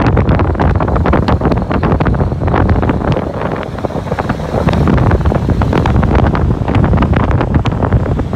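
Heavy wind buffeting the microphone from riding in the open bed of a moving pickup truck, with the truck's road noise underneath. The gusts come in ragged, uneven surges.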